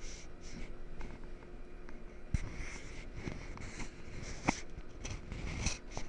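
Fingers handling and straightening the thin insulated wires of a stripped UTP CAT6 cable: scratchy rustling, with a few sharp ticks about two, four and a half and five and a half seconds in.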